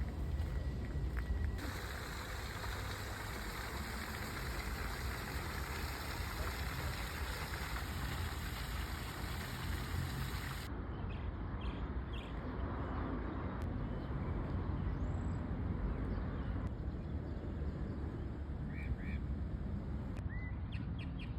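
Outdoor park ambience: a steady low rumble of city traffic under a wash of noise, with a brighter hiss in the first half that cuts off suddenly about ten seconds in. A few short bird chirps come near the end.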